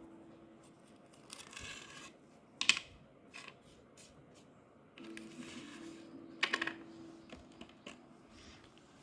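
Quiet handling noises of slime being worked in a bowl: scattered soft clicks and scraping, with two sharper clicks about a third of the way in and again past the middle.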